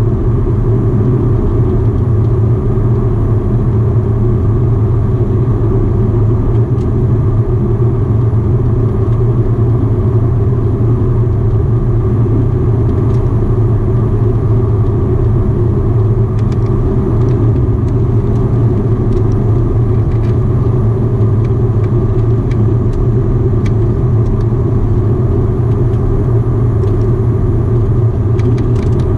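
Antonov An-24's Ivchenko AI-24 turboprop engines and propellers droning steadily, heard inside the passenger cabin beside the engine during the landing approach. The drone is a deep, even hum with a few faint ticks in the second half.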